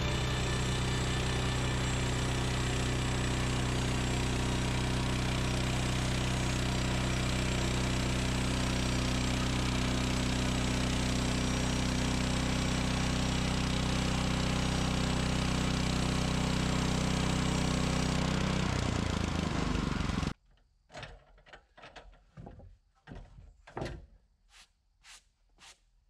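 Woodland Mills HM126 portable band sawmill running steadily under its 14 hp engine while the blade cuts a white cedar log into 2x4s. The engine's low hum drops out about 18 seconds in and the remaining noise stops abruptly about two seconds later, followed by a few light knocks and clicks.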